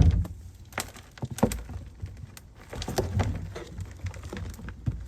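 A few sharp knocks and cracks, with rustling in between, from containers being handled and set down.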